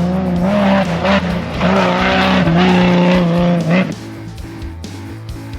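A vehicle engine revving hard and held under throttle, its pitch stepping slightly up and down, over background music. The engine cuts off about four seconds in, leaving the music.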